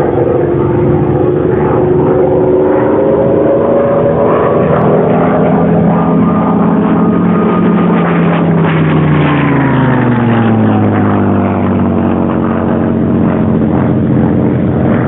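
Propeller-driven airplane flying past: a loud, steady engine drone whose pitch slides down over several seconds from about the middle as it goes by.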